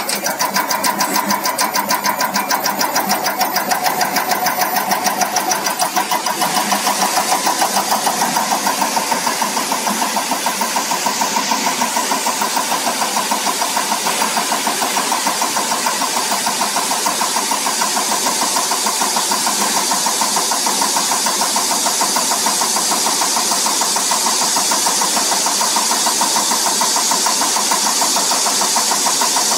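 CR819 EUI/EUP test bench running its cam drive at 400 rpm, driving an electronic unit injector through the start-point delivery test: a rapid, steady mechanical ticking over a steady whine.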